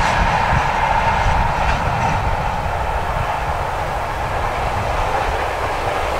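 Freight train's container wagons rolling along the track, a steady rumble of wheels on rail that slowly fades as the train moves away.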